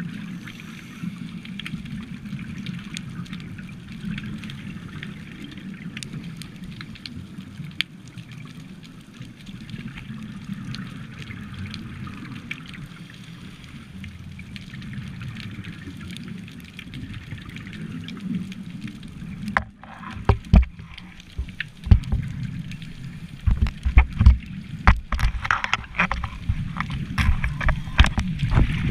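Muffled underwater noise picked up by a dive camera in its housing: a steady low rumble with a faint hiss above it, then from about two-thirds in a run of loud, irregular bursts and knocks as the camera moves.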